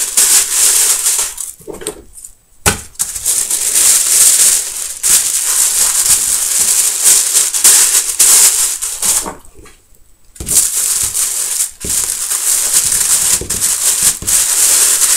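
Tissue paper crinkling and rustling loudly as it is folded around piles of photos, with two brief lulls, about two seconds in and near ten seconds.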